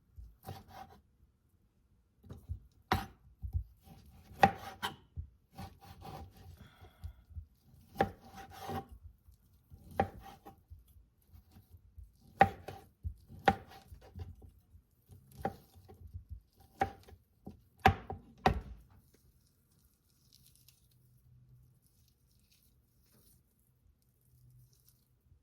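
Kitchen knife chopping cooked grilled chicken on a cutting board: sharp, irregular chops about every second or so, stopping about two-thirds of the way through.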